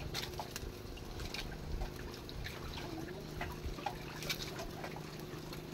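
Water lapping and trickling against the hull of an outrigger boat, with scattered small clicks and knocks.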